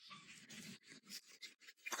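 A puppy making faint, quick, irregular little sounds, with a louder one at the very end.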